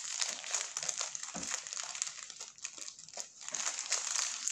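Paper wrapper of a footlong wrap crinkling and rustling as it is peeled open by hands in disposable plastic gloves: a continuous run of irregular crackles.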